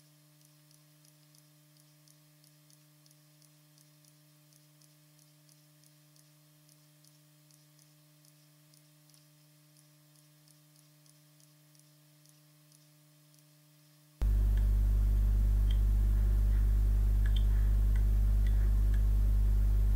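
A faint steady electrical hum with a light, regular ticking of about three ticks a second. About fourteen seconds in it jumps suddenly to a much louder, steady low hum, with a few faint clicks over it.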